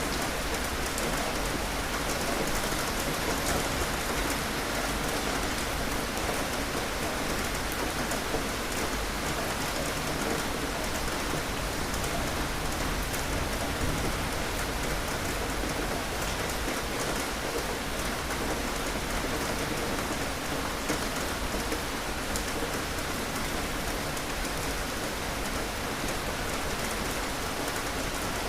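Steady heavy rain falling on surfaces, a continuous even patter of drops with no clear thunder.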